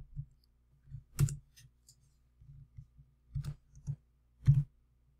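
Scattered keystrokes and clicks on a computer keyboard and mouse, about ten separate clicks spaced unevenly, as a spreadsheet formula is typed and edited.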